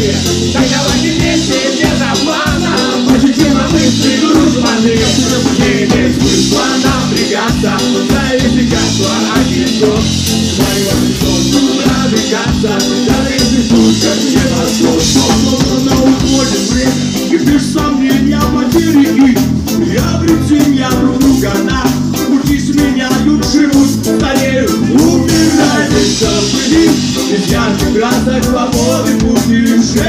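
A live band playing loudly on stage: electric guitars, bass and drums, with a man singing into a microphone.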